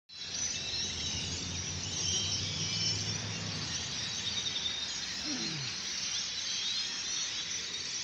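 A large flock of birds perched on overhead wires, calling all at once in a continuous chattering din. A low steady hum runs beneath it and stops a little before halfway.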